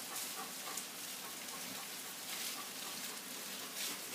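Vegetables and brown rice sizzling in olive oil in a frying pan: a steady hiss, with a few slightly louder swells.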